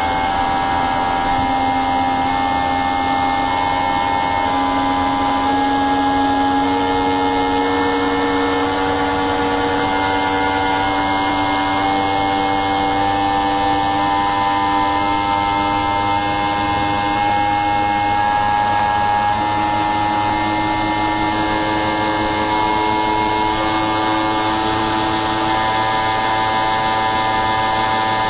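Inverter air conditioner running: a steady mechanical hum with several steady tones that step up or down in pitch every few seconds.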